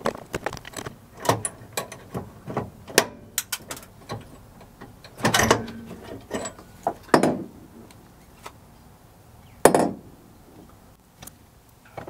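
Irregular clicks, knocks and light rattles of metal and plastic parts being handled at a car's brake pedal assembly under the dashboard, with three louder scuffs about five, seven and ten seconds in.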